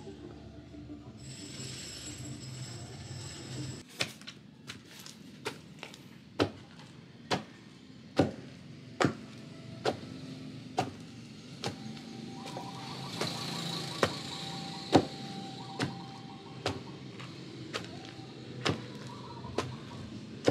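Long wooden pestle pounding nilupak mash in a wooden mortar (pambayo and lusong): regular thuds about once a second, starting about four seconds in.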